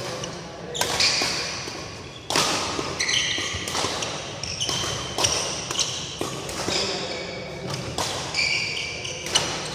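Badminton rackets striking a shuttlecock in a fast doubles rally: a string of sharp smacks every half second to a second, echoing in a large hall. Short high squeaks in between, from court shoes on the court mat.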